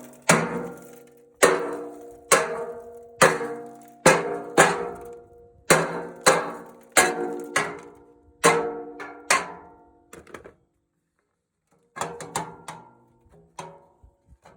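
Hammer blows on heavy steel, about one a second at an uneven pace, each strike ringing out with a metallic tone that fades before the next. The blows stop for over a second about ten seconds in, then a few lighter strikes follow.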